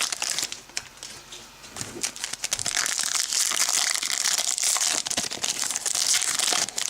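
Foil wrappers of trading-card packs crinkling as the packs are handled and opened. The crinkling drops off briefly about a second in, then carries on.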